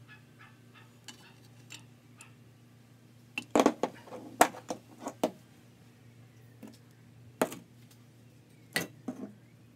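Sharp metal clinks and knocks of engine parts, such as the valve lifters, being handled in and around the opened VW 1600 crankcase half. A quick cluster comes a few seconds in, then single clinks later.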